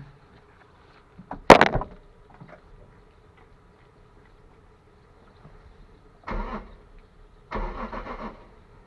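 A sharp knock about a second and a half in, then the Lexus IS200's 1G-FE straight-six cranked on the starter twice, briefly, near the end without catching. The fuel pump makes no hum during cranking: the pump is not running, the cause of the no-start.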